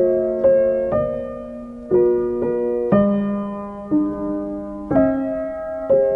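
Slow, gentle piano background music. Soft chords are struck about once a second and each rings and fades before the next.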